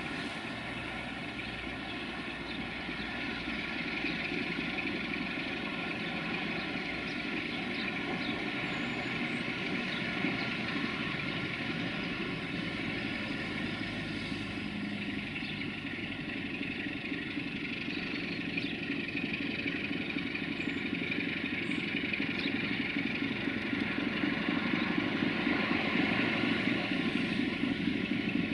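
Two 060-DA (LDE2100) diesel-electric locomotives, each with a Sulzer 12LDA28 diesel engine, running steadily as they haul a freight train, growing louder as they approach in the last several seconds.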